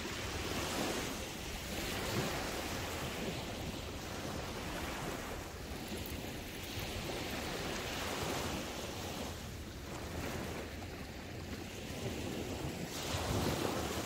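Small ocean waves breaking and washing up a sandy beach, the surf swelling and fading with each wave and loudest near the end.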